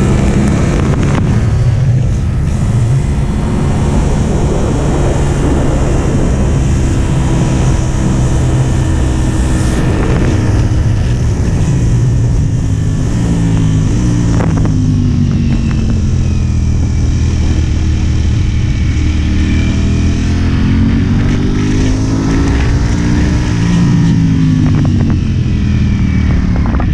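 Sport motorcycle engine running hard at racing speed, its pitch rising and falling again and again as the rider accelerates, shifts and brakes, with a rush of wind noise behind it.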